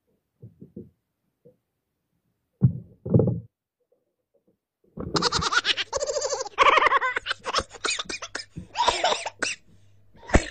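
A few dull thumps, then from about halfway a man laughing and calling out in excitement over splashing and knocking as a mahi-mahi is hauled to the boat's side on a nylon handline; a falling cry near the end.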